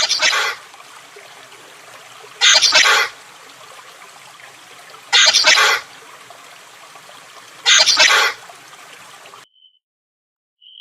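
Chameleon calls: four short hissing bursts about two and a half seconds apart. The sound cuts off near the end, and a faint short whistle-like tone follows.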